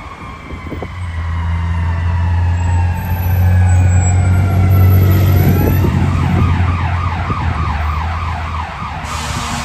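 Emergency vehicle siren, first in slow falling wails, then switching about six seconds in to a rapid up-and-down yelp. Under it runs a deep droning hum, loudest around the middle.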